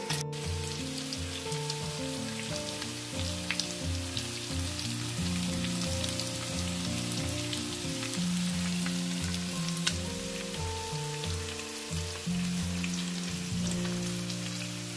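Marinated beef tapa sizzling as it fries in its sauce in a nonstick pan, a steady hiss with scattered faint crackles. Background music with a steady beat plays underneath.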